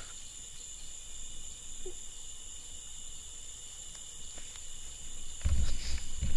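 Night insect chorus of crickets, a steady high-pitched trilling. A loud low rumble comes in near the end.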